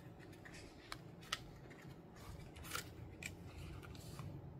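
Paper pages of a passport-size Traveler's Notebook diary refill being flipped and handled, with a few faint crisp clicks as the pages turn and the notebook is opened in the hands.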